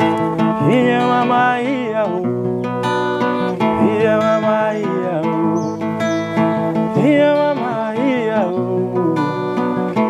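Background music led by strummed acoustic guitar, with a melody line that slides up and down in pitch.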